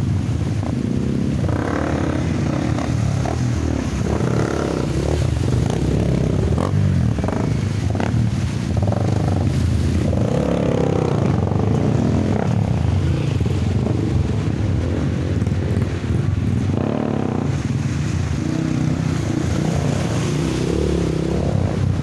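Trail motorcycle engines running as several dirt bikes are ridden through a shallow, rocky river.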